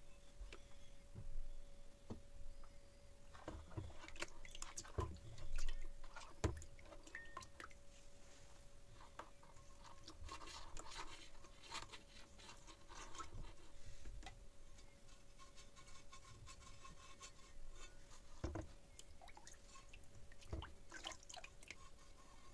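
A rusty steel spade head being handled in a plastic tub of soaking liquid: faint splashes and drips of water, with scattered knocks and scrapes of the blade and fingers on its wet surface, the loudest knocks about five to six seconds in. A faint steady hum sits under it.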